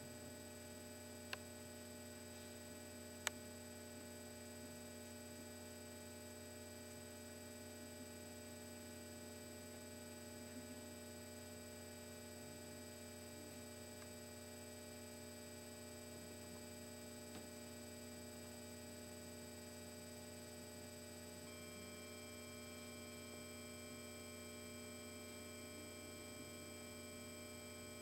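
Steady electrical mains hum with a stack of higher steady tones above it. Two small clicks come about one and three seconds in, the second louder, and a few faint higher tones join about two-thirds of the way through.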